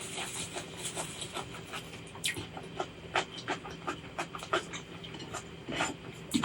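Close-miked chewing and mouth sounds: a steady run of wet clicks and crunches, about three or four a second.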